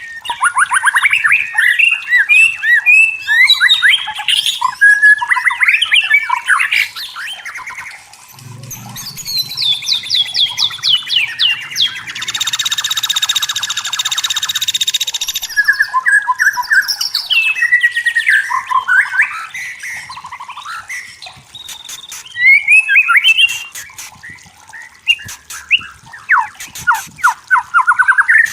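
White-rumped shama singing a long, varied song of quick whistled phrases, sweeping notes and rapid chattering trills. A few seconds of harsh buzzing come near the middle.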